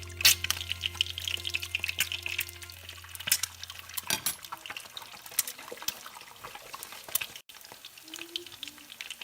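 Drip coffee maker brewing, with water gurgling and sputtering in small crackles. Background music plays under it for the first four seconds or so, then stops.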